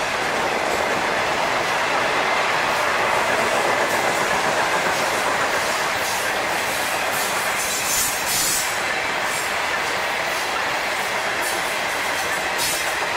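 Freight train's covered grain hopper cars rolling past: a steady rolling noise of steel wheels on rail, with a few brief high-pitched wheel squeals, the loudest a little past the middle and another near the end.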